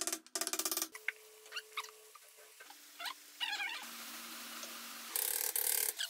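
Hammer tapping a wooden block against a jet pump motor's end cover to seat it back over the freshly greased bearing, in quick runs of taps at the start and again near the end. Between the runs come a few short squeaky calls that rise and fall.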